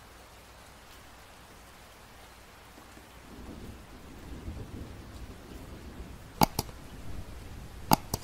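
Bamboo qalam rubbing and scratching on paper as ink strokes are drawn, a low rough rustle that starts a few seconds in. Near the end, two pairs of sharp clicks are louder than the writing.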